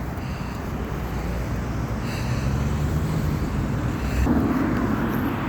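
A bus's diesel engine running and pulling away, a low rumbling engine note that rises slightly from about two seconds in and grows louder a little after four seconds.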